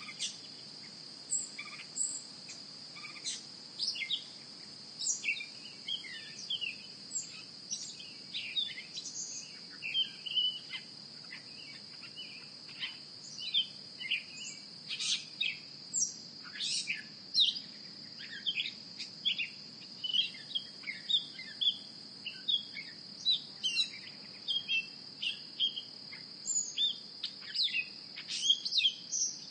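Crickets trilling steadily at a high pitch, with many short bird chirps and calls over them throughout.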